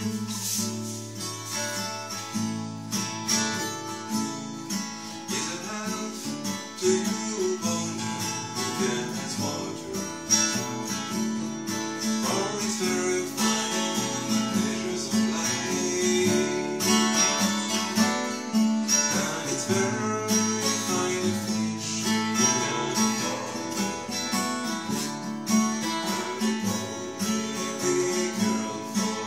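Acoustic guitar strummed and picked in a steady rhythm, playing an instrumental arrangement of an old Irish song.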